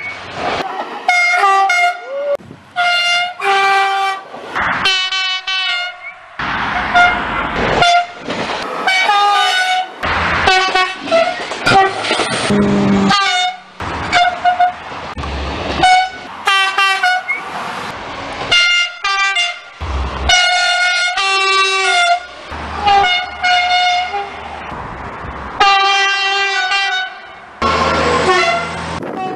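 Horns of SNCF passenger trains sounding over and over, a rapid string of short toots and longer held blasts at several different pitches, one train after another, each cut off abruptly. Between some blasts comes the rumble of a passing train.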